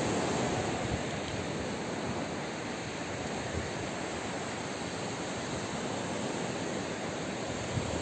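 Surf from a rough sea breaking and washing up a sandy beach: a steady rush of water noise.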